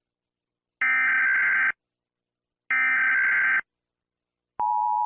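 Emergency Alert System SAME header data tones: two loud, identical bursts of digital data warble about a second long, two seconds apart. About four and a half seconds in, the steady two-tone EAS attention signal starts.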